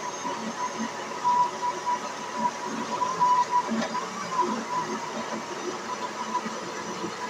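Kitchen blender running steadily, its motor blending corn kernels, milk and oil into a thick pamonha batter.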